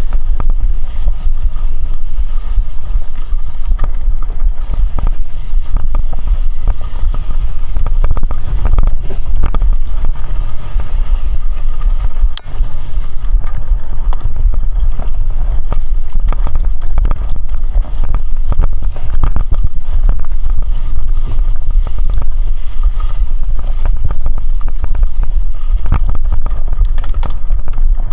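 Heavy wind buffeting on the microphone while moving, heard as a loud, continuous low rumble.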